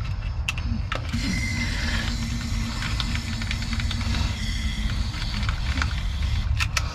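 Aerosol can of PB Blaster penetrating oil spraying through its straw into a spark plug hole in a steady hiss, starting about a second in and stopping near the end. It is soaking the rusted cylinders of a seized engine. A steady low rumble runs underneath.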